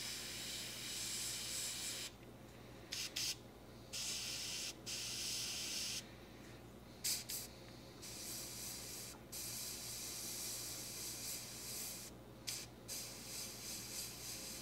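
Gravity-feed airbrush spraying thinned paint: a steady hiss of air and paint that starts and stops in stretches of a second or two as the trigger is pressed and released, with a few quick short puffs between them.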